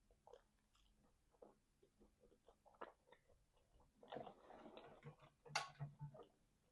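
Faint mouth sounds of someone eating: a scatter of small wet clicks of chewing, with a louder, noisier stretch of chewing about four seconds in and a sharp click soon after.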